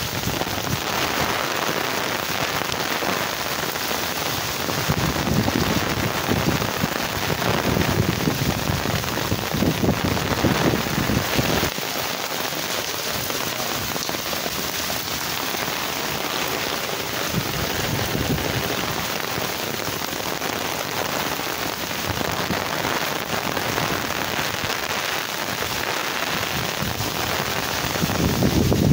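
Cyclone rain pouring steadily and splashing on surfaces, a dense continuous hiss with low rumbles that come and go.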